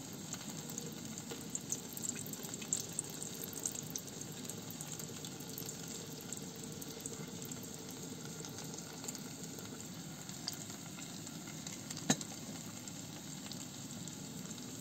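Onions and potatoes frying in oil in a steel pot on a portable gas burner: a steady low sizzle with small crackles. One sharp click about twelve seconds in.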